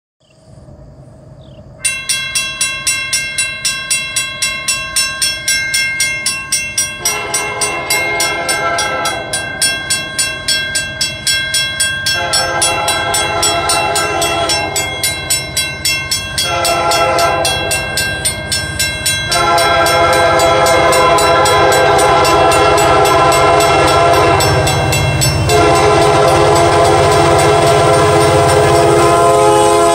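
Railroad grade-crossing bell dinging in a steady, rapid rhythm from about two seconds in. From about seven seconds in, an approaching diesel locomotive's air horn sounds a series of long blasts, its crossing warning, over a low engine and rail rumble that grows as the train nears.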